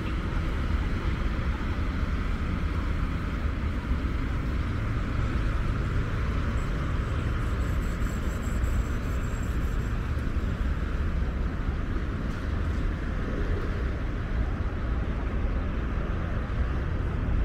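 Steady city traffic noise from a wide multi-lane road, a continuous hum heavy in the low end.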